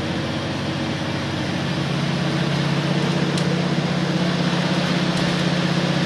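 KiHa 47 diesel railcar's engine heard from inside the passenger cabin, running under power as the train pulls away from a station, getting louder about two seconds in, over a steady rumble of running noise.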